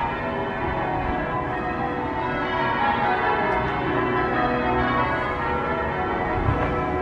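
Church bells ringing changes: a peal of many bells overlapping in a steady, continuous ringing.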